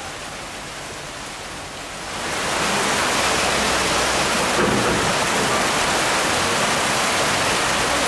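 Heavy rain pouring down, a steady hiss that grows louder about two seconds in.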